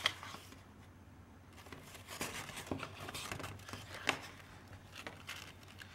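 Faint rustling and crinkling of a small paper bag being handled while a cord is threaded through its punched hole, starting about a second and a half in, with scattered light ticks and one sharper tick about four seconds in.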